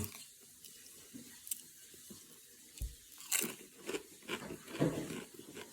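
A person chewing crunchy popped-corn chips (PopCorners), a run of short, sharp crunches about every half second starting about three seconds in, after a few faint clicks.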